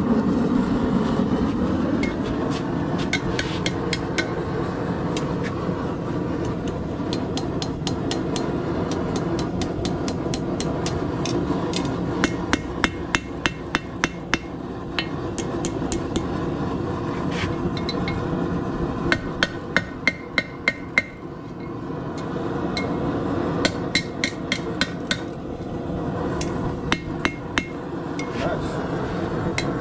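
A blacksmith's hammer striking hot steel on an anvil, bending the piece, in runs of quick ringing blows with pauses between. A steady rushing noise runs underneath.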